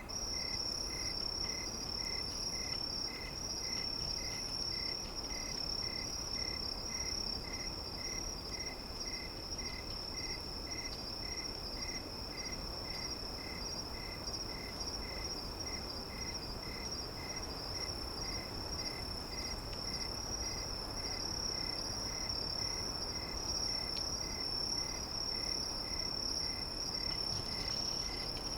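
Insects trilling: a continuous high, shrill trill that starts suddenly at the beginning, with a lower chirp repeating about twice a second alongside it, over a soft steady background hiss.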